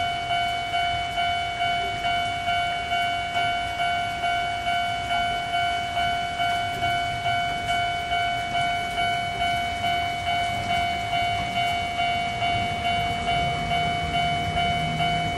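Japanese level crossing warning bell ringing in a steady, even rhythm of about three clangs every two seconds, each one ringing on and fading. A low rumble rises faintly near the end.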